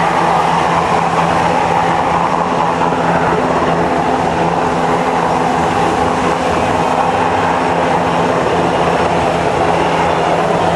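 Coast Guard MH-60 helicopter hovering close by: a loud, steady rotor and turbine noise with a low held hum.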